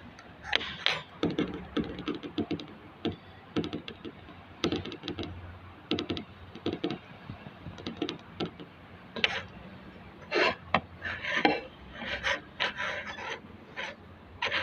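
Irregular scraping, rubbing and light knocks of hand work on the speaker being restored, over a faint steady low hum.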